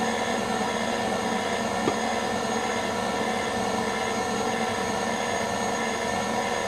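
Electric stand mixer running steadily at a low setting, its whisk beating egg-white royal icing in a glass bowl, with one light tick about two seconds in.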